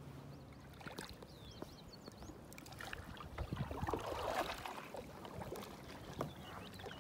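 Faint water sounds around a kayak sitting still on the water: light dripping and trickling with a few small knocks, swelling into a patch of trickling about four seconds in. A few faint bird chirps sound about a second in.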